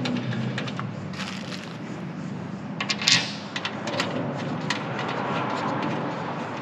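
Small clicks and knocks as screws are fitted finger-tight and the fold-down rear barn door table panel is handled, with one sharper clack about three seconds in, over a steady workshop hum.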